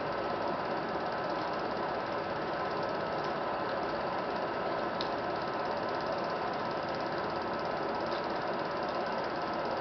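Film projector running steadily: the continuous mechanical clatter of its film transport, with a thin steady whine over it.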